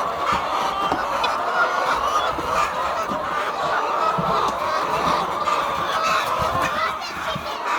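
A large flock of chickens in a poultry house clucking and calling together, a dense, steady chatter of many overlapping voices.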